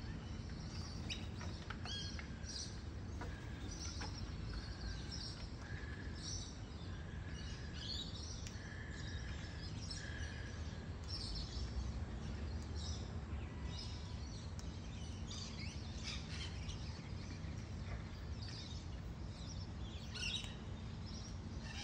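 Birds chirping and twittering throughout, over a steady low background hum. In the first half a clear whistled note repeats about once a second for several seconds.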